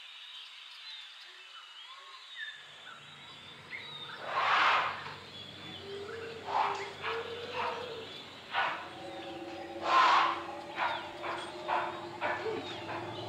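Small birds chirping. Then a steady low hum comes in, and over it come repeated short bursts of rustling and crackling as elephants feed in bushes, tearing at leaves and branches.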